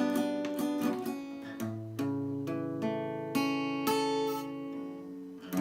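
Acoustic guitar with no singing: a few quick strums, then notes picked one at a time and left to ring, including a low bass note, as the song's closing bars.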